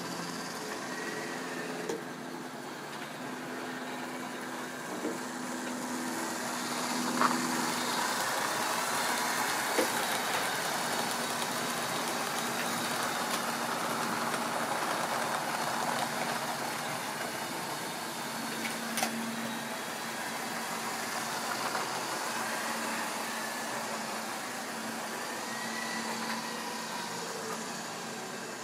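Tri-ang and Lima model railway trains running on the track: motor hum and wheel rumble, with a few sharp clicks. It is louder in the middle as coaches pass close by.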